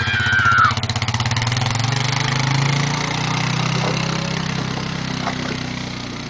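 ATV engine running as it tows a sled through snow, revving up about a second and a half in and then holding a steady pace. A brief high-pitched voice is heard right at the start.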